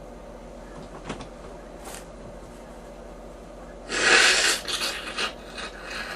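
A person with bronchitis coughing: one hard cough about four seconds in, followed by a few shorter coughs and breaths.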